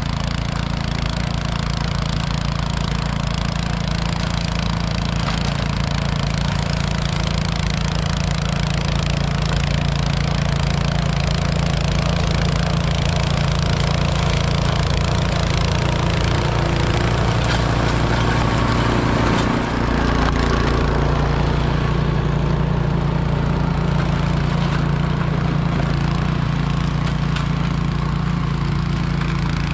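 Snow thrower's engine running steadily under load as it clears deep snow, a constant mechanical hum with a dense hiss over it. About two-thirds of the way through, the hiss thins out while the engine runs on.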